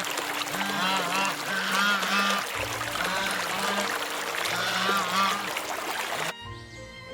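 Repeated short animal calls, about five, each rising then falling in pitch, over background music with long held notes; the sound changes abruptly near the end.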